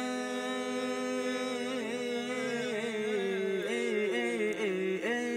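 Unaccompanied male voice singing a Punjabi devotional kalam, drawn out on one long note without words. The note is held steady at first, then about two seconds in it breaks into wavering ornamental turns that step down in pitch.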